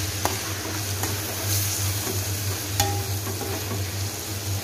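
Chopped onions and tomatoes sizzling in hot oil in a kadai while they are stirred, with two sharp clicks of the spoon against the pan.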